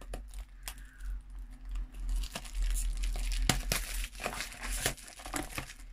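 Wrapping on a small cardboard blind box being torn and crinkled off by hand, with rustling that grows busiest from about two seconds in and a few sharp snaps of the wrapping.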